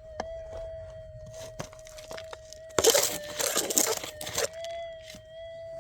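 Minelab metal detector's steady threshold tone, with a few light clicks. About three seconds in, a digging pick scrapes and crunches into gravelly ground for a second and a half.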